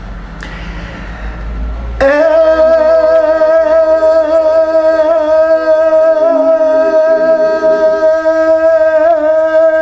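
An azmari's singing voice: about two seconds in, a man comes in on a long, high note and holds it with a slight waver, while a lower accompanying line moves underneath.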